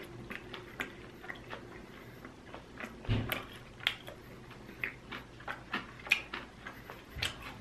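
Close-miked chewing of a honey barbecue chicken wing: irregular wet mouth clicks and lip smacks, with a louder thud about three seconds in.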